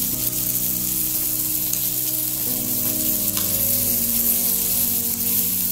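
Pot of ramen broth heating on a gas burner: a steady hiss as it works up toward the boil, with soft sustained low tones underneath.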